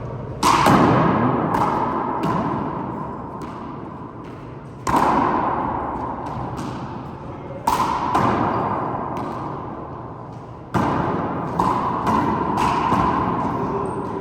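Handball rally: sharp smacks of the rubber handball struck by hand and hitting the court walls and floor, the four hardest about every three seconds with smaller knocks between, each ringing on in the court's echo.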